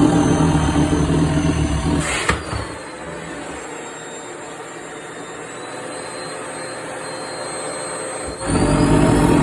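Vacuum cleaner running loudly. About two seconds in, a short rushing burst is followed by the sound dropping to a quieter, thinner whine that slowly rises in pitch, as skirt fabric is sucked in against the nozzle. About eight seconds in, the full loud running sound returns abruptly.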